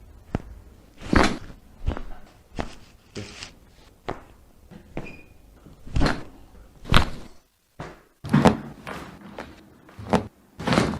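Hands-on chiropractic manipulation of a patient on a treatment table: a dozen or so short thuds and knocks at irregular intervals, roughly one or two a second.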